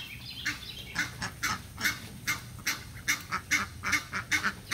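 Egyptian geese honking in a rapid run of short, harsh calls, about three a second.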